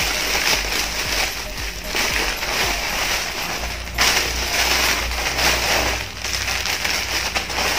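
Plastic parcel packaging being torn open and handled: a dense crackling rustle, with a sharper tearing burst about four seconds in.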